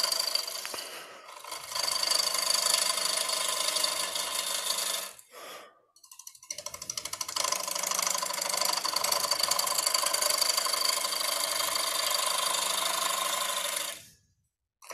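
Bowl gouge cutting the inside of a wet, freshly harvested cedar bowl blank spinning on a wood lathe: a steady rough, hissing cut with a faint whine in it. It cuts out briefly about five seconds in and again near the end.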